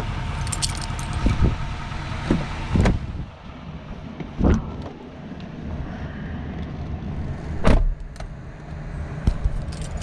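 Keys jangling and clicking, then a few heavy thumps, the loudest near the end, as the driver's door of a pickup truck is opened and someone climbs into the cab.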